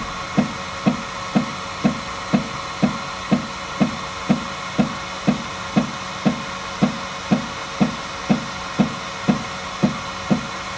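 FlashForge Adventurer 3 3D printer making an even knock-knock noise, about two knocks a second, over the steady hum of its fans. The knocking comes while no filament comes out for the raft's first layer.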